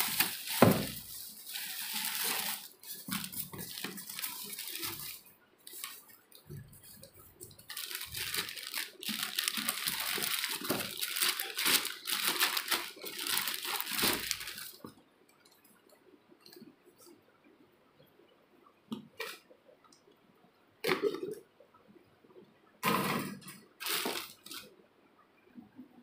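Bubble wrap and thin plastic sheeting crinkling and rustling as they are handled and pulled away. The rustling is dense for the first half, then comes only in a few short bursts with quiet between.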